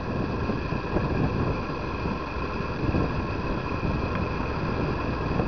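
Wind buffeting the microphone, a heavy, irregular low rumble, with a steady high whine of several tones above it.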